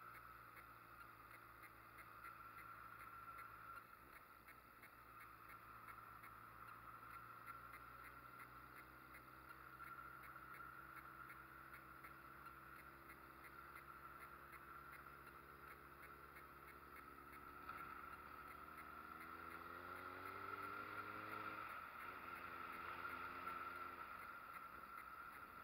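Faint street motorcycle engine running under way; about two-thirds of the way through its pitch climbs steadily as it accelerates, then drops suddenly with a gear change and starts climbing again.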